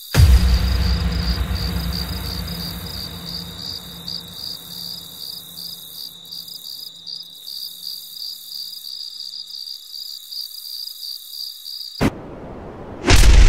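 Crickets chirping steadily, with a deep rumble that hits right at the start and fades away over several seconds. The crickets cut off suddenly near the end, and a loud hit follows.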